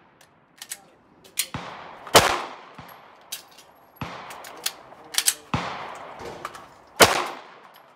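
Pistol shots fired at an unhurried pace, about five over the stretch, each with a ringing echo trailing off. Lighter, sharper cracks come between them.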